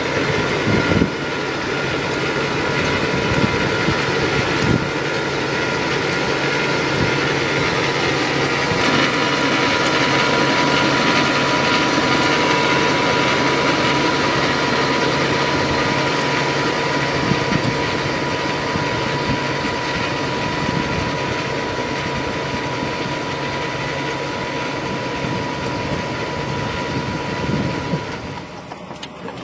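Machine engine running steadily, with a steady whine over the engine noise, dropping off near the end.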